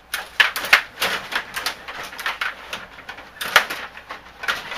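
Hockey video game sound effects: an irregular run of short, sharp noisy sounds, several a second, with a louder cluster near the start and another about three and a half seconds in.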